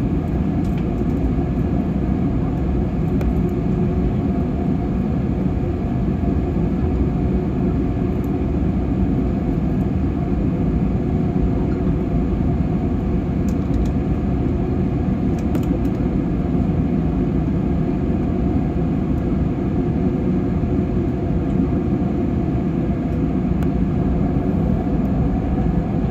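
Steady drone inside an airliner's cabin in flight: engines and airflow making an even, unchanging rumble.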